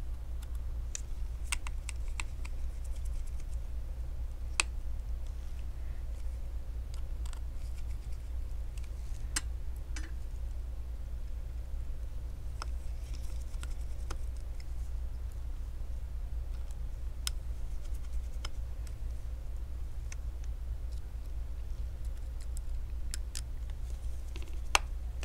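Scattered small, sharp clicks and ticks of a precision screwdriver driving the tiny screws of the display-connector bracket inside an iPhone 11, over a steady low hum. A short cluster of clicks comes near the end as the phone is handled.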